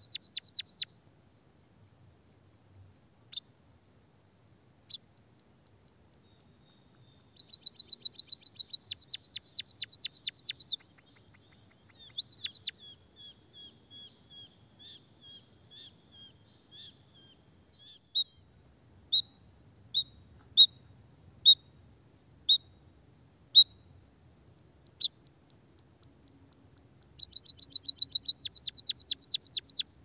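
White-headed munia singing: long runs of rapid, high-pitched ticking notes, 'kikikikik', with a stretch of single sharp chips about one a second in the middle.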